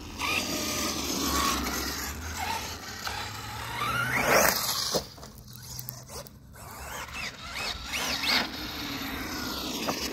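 Arrma Mojave 8S RC truck on 6S batteries, its brushless electric motor whining and rising and falling in pitch with the throttle. The loudest moment is a sharp rising rev about four seconds in.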